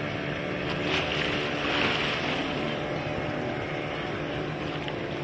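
Motorboat engine running steadily under way, with water rushing and splashing along the hull and wind on the microphone; the water noise swells briefly about a second or two in.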